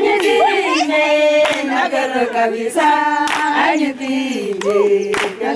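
A group of women singing a chant together, with a few sharp hand claps.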